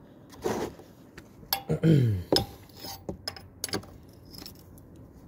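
A steel combination wrench clinks and clicks against the motorcycle engine's oil drain plug and the metal around it as it is fitted onto the plug, a handful of separate sharp metallic taps. About two seconds in comes a short voice sound that falls in pitch.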